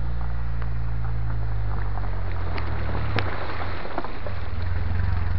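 Vehicle engine running with a steady low hum, heard from inside the cabin, over the noise of tyres on a rough dirt road. Scattered knocks and rattles come as the vehicle jolts, with one sharp knock about three seconds in.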